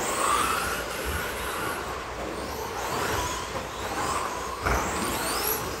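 Electric RC stadium trucks racing: the high whine of their 13.5-turn brushless motors rises again and again as they accelerate, over steady tyre and drivetrain noise. A low thump comes near the end.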